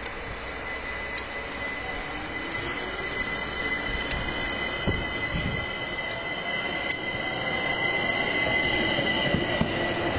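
Bombardier Talent electric multiple unit pulling into the platform: a high, steady squeal sits over its running noise, which grows louder as the train draws level, with a few sharp clicks along the way.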